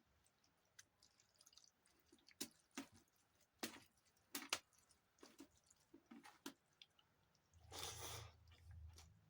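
Soft, wet squelching clicks of rice and dalma being mixed and handled, then louder close-up chewing of a mouthful near the end.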